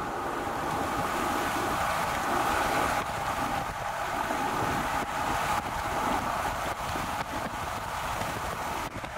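Steady rushing of a vehicle driving along a highway: tyre and wind noise.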